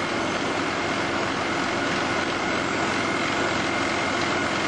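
Helicopter running steadily: a constant drone of engine and rotor with a steady whine over it.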